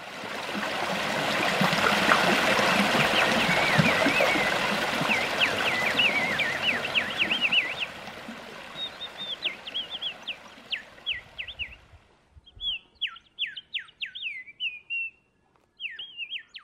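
A small mountain stream trickling and splashing over rocks, with songbirds chirping in runs of quick falling notes. About eight seconds in the water sound fades away, leaving the bird chirps alone with short pauses between them.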